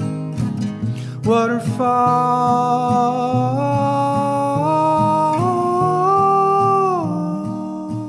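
Male lead vocal holding one long sung note that steps up in pitch a few times and falls away about seven seconds in, over steady guitar accompaniment, in a live band performance of an indie song.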